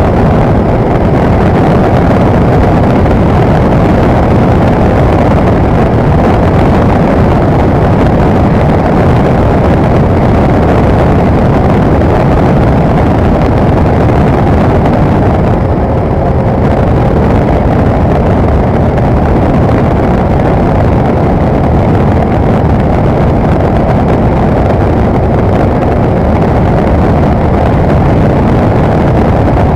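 Cessna 172's piston engine and propeller running steadily at cruise power, a loud constant noise with wind rush, heard from inside the cabin.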